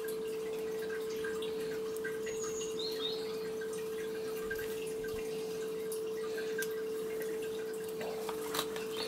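A steady hum held at one mid pitch, with faint small taps and scrapes of a spoon and fingers working on a metal baking tray.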